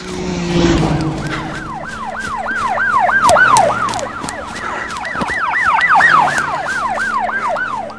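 Police car siren in rapid yelp mode, quick falling wails about four a second, swelling louder and softer, with a low rumble in the first second or so.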